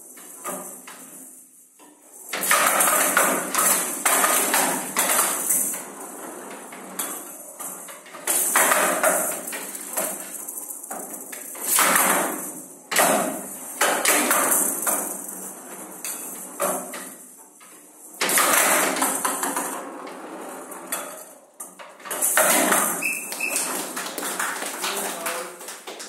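Showdown rallies: the ball, with small metal pellets inside, rattles and jingles as it rolls across the wooden table. Sharp knocks come as the bats strike it and it bangs off the table's side walls, in irregular bursts several seconds long.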